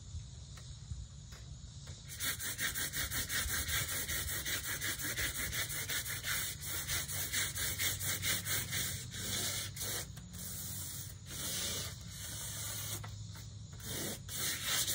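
Sandpaper rubbed by hand over a garage door panel in rapid back-and-forth strokes, starting about two seconds in. The strokes pause briefly twice before going on.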